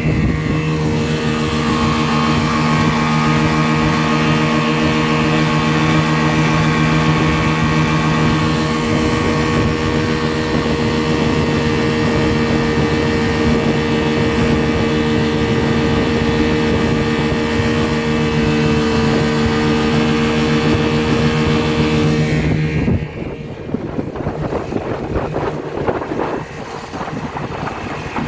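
1978 Chrysler 15 hp two-stroke outboard motor running at a steady speed, pushing a boat along. About three-quarters of the way through, its steady note cuts off abruptly and leaves quieter, choppy noise.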